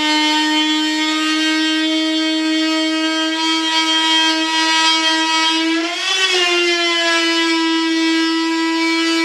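Small corded high-speed rotary tool whining steadily as it cuts the cured fibreglass-and-resin edge of a mold. About six seconds in, the pitch sags briefly as the cutter bites harder, then recovers.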